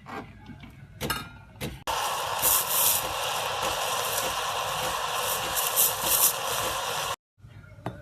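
Electrolux espresso machine's steam wand hissing loudly and evenly for about five seconds, brightening in surges, after a few knocks and clicks. The hiss cuts off suddenly.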